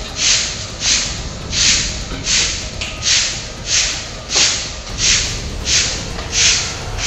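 Regular pulses of hissing noise, about three every two seconds, evenly spaced and steady, over a low rumble.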